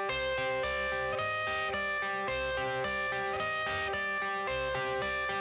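Instrumental music: a guitar playing a repeating riff of short notes over a steady bass pulse, the intro of a rap/rock song.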